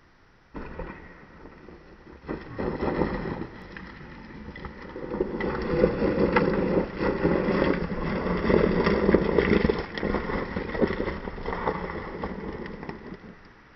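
Mountain bike rolling over a dry dirt trail, its knobby tyres crunching and clattering on loose dirt and gravel. The sound starts with a sudden thump about half a second in, grows louder as the bike comes close, and fades near the end.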